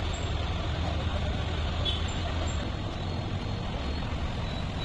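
Steady street traffic noise with a low rumble.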